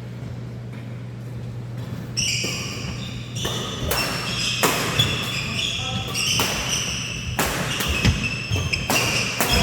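Badminton rally: rackets strike the shuttlecock in a string of sharp cracks at irregular spacing, starting about two seconds in, with high-pitched shoe squeaks on the court floor between them. A steady low hum runs underneath.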